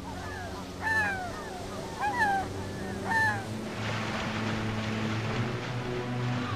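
Three descending seabird calls about a second apart, then a steady hiss of churning, splashing water, over low steady held tones.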